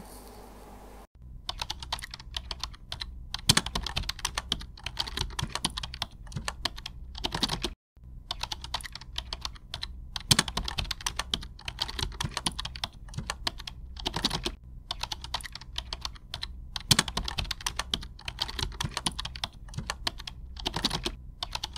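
Ballpoint pen writing on paper, sped up: a fast, dense run of short scratches and taps of the tip on the page over a faint steady hum, with two brief breaks where the recording cuts, about a second in and near the middle.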